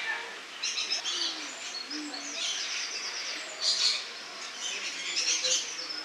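Rainbow lorikeets chattering: high-pitched, rapidly pulsed calls in several bursts.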